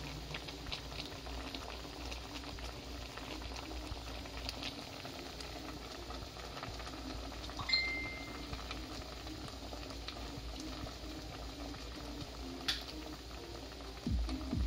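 Lemongrass and ginger boiling in water in a stainless steel pot: a steady bubbling with scattered small pops. One short high tone sounds a little past halfway.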